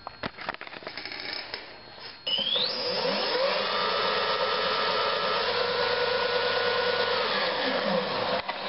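Handling clicks, then about two seconds in the bike's new Turnigy electric motor spins up through its belt drive with a rising whine. It holds a steady high-pitched whine at speed for about five seconds, then winds down near the end.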